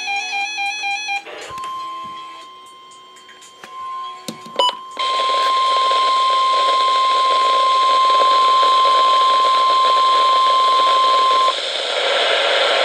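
NOAA Weather Radio warning alarm tone, the 1050 Hz test signal of the weekly alarm test, played through a weather radio receiver. It is one steady, unbroken tone lasting about ten seconds and jumps louder about five seconds in, with radio static hiss and a few clicks at the change. It stops about two seconds before the end, leaving the static.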